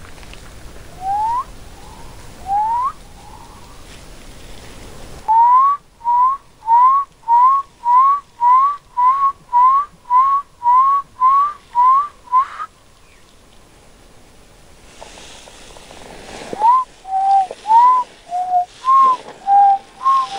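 A person whistling. First come two slow rising notes. Then a quick run of about fifteen short upward-sliding notes, about two a second. After a pause, a phrase of notes alternates between rising and lower pitches near the end.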